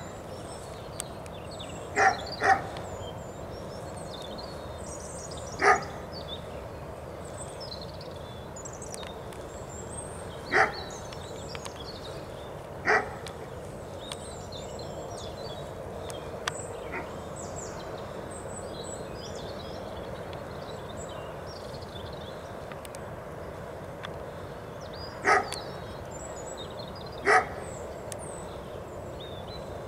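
A dog barking at intervals: single barks, and a quick pair about two seconds in, spread irregularly over a steady background hum. Faint bird chirps come through between the barks.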